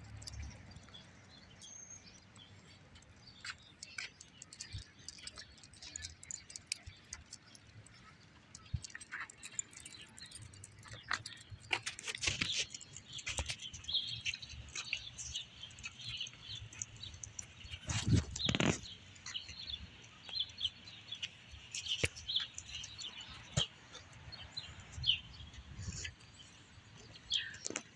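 Birds chirping in many short calls, busier from about halfway through, over faint outdoor background noise with scattered small knocks and one louder knock a little past the middle.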